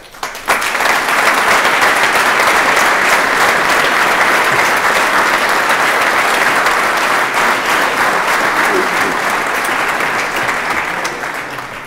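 Audience applauding: steady clapping from a seated crowd that sets in about half a second in and fades away near the end.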